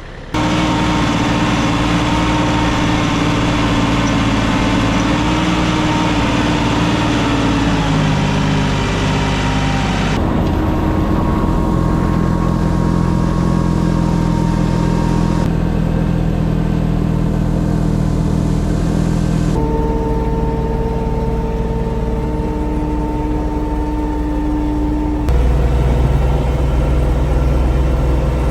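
A vehicle engine running steadily. Its pitch and tone jump abruptly several times, as separate clips of engine running are cut together.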